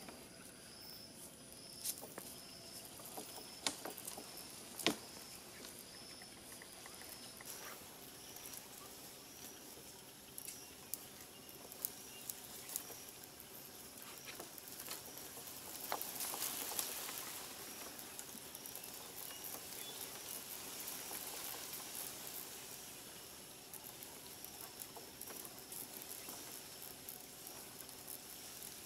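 Sharp clicks and knocks from the lashed bamboo platform as a barefoot climber shifts his weight on it, then a longer rustle of leaves and branches about halfway through as he climbs down the tree. Behind it, a steady high insect drone and a high chirp repeating less than a second apart.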